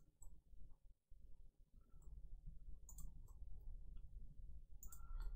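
Faint, scattered clicks of a computer mouse and keyboard, a few at a time near the start and about three and five seconds in, over a low background rumble.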